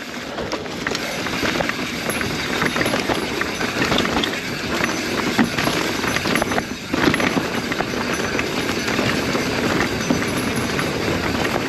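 Mountain bike riding down a rough trail: a steady rush of tyre noise broken by many small clatters and knocks from the bike.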